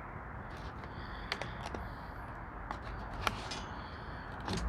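Scattered small clicks and light rustling from handling a small folding knife, the sharpest click a little past three seconds in, over a steady background hiss.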